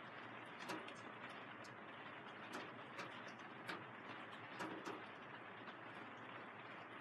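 Rain on a vinyl greenhouse's plastic sheeting: a steady patter with irregular, louder drops tapping the film now and then.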